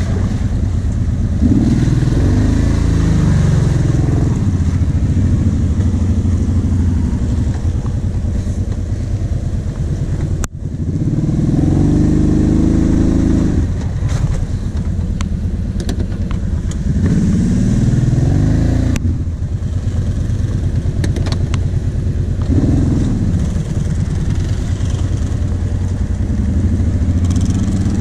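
Kawasaki KVF 750 Brute Force quad's V-twin engine running under load and revving up again and again as it is ridden through mud holes, with a few rattles from the machine.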